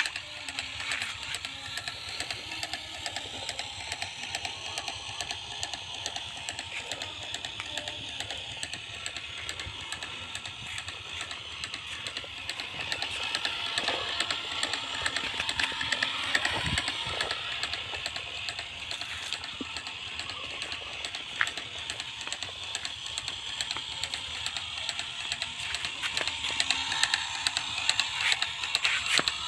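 Small electric gear motor and drive of a PVC model hand tractor running, giving a fast, dense clicking rattle. It gets a little louder about halfway through and again near the end.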